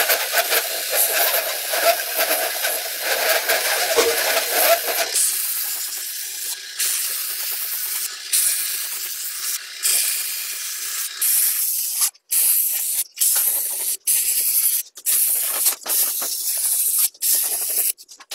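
Paint spray gun spraying, a steady hiss of air and paint. In the second half the trigger is let go again and again, cutting the hiss off briefly about once a second.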